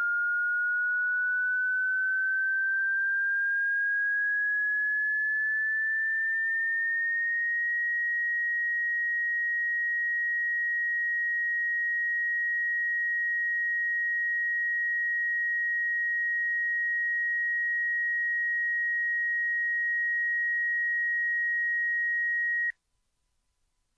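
Pure electronic sine tone gliding slowly upward in pitch for about seven seconds, then holding one steady high note, and cutting off suddenly near the end.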